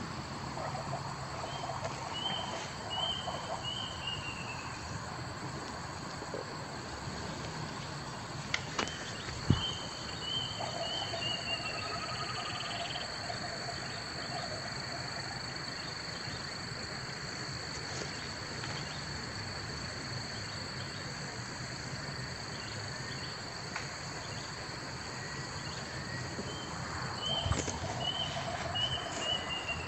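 Outdoor insect ambience: a steady high insect drone, with short falling chirps in groups of three that come back a few times. A sharp knock about nine and a half seconds in.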